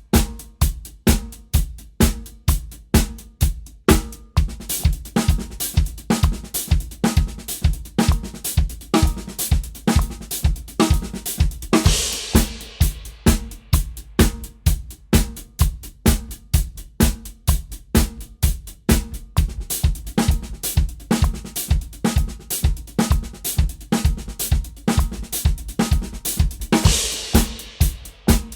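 Drum kit played in continuous sixteenth-note paradiddle patterns spread across bass drum, snare and hi-hat, the paradiddles starting on shifting beats of the bar. A cymbal crashes twice, about twelve seconds in and near the end.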